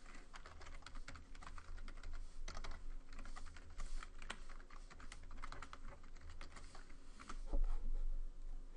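Typing on a computer keyboard: a steady run of key clicks, with a low thump about seven and a half seconds in.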